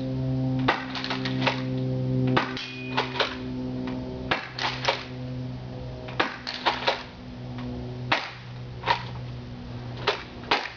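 Double Eagle M3 pump-action multi-shot airsoft shotgun being racked and fired over and over: sharp clicks and snaps in clusters of two or three, every second or two.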